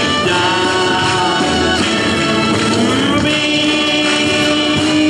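A song with several singing voices holding long notes over instrumental accompaniment; one note is held steady from about a third of the way in.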